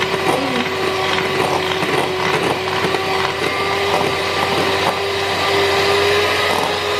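Electric mixer running steadily with a constant motor whine, its beaters churning butter and sugar in a bowl as they are creamed until fluffy.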